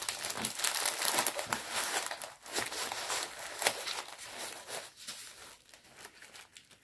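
Plastic packaging of a diamond painting kit crinkling and rustling as it is handled, with many small crackles, busiest in the first few seconds and dying down toward the end.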